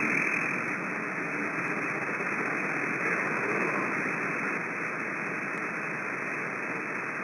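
CB radio receiver hiss: steady static from an open channel between transmissions, narrow and band-limited like radio audio.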